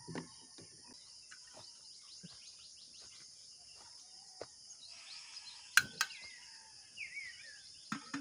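Two sharp clicks in quick succession about six seconds in, from the igniter of a portable canister gas stove being sparked, with another click near the end. A steady high insect chorus runs underneath, and a bird chirps briefly after the clicks.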